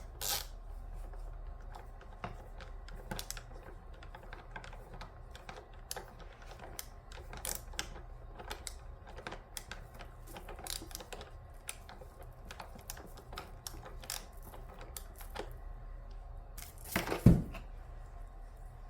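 Hand Phillips screwdriver driving screws into a vacuum's plastic housing: a run of small, irregular clicks and ticks, with one louder knock about 17 seconds in.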